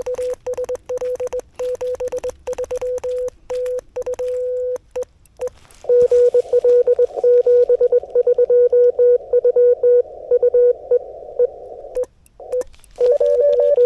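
Morse code from a Yaesu FTX-1F transceiver on 40 m CW: a tone near 500 Hz keyed on and off in dots and dashes, over receiver hiss. The keying stops about five seconds in and comes back louder about a second later. After a short break near the end it resumes with a second, slightly higher tone alongside.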